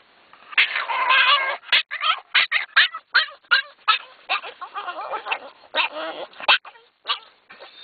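Excited Boston terrier whining and yelping. A wavering, high whine comes first, then a run of short, sharp yips, about two or three a second.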